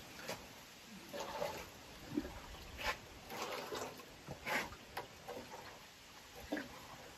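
Irregular splashes and knocks as water is handled in a red plastic bucket, with scattered short clatters throughout.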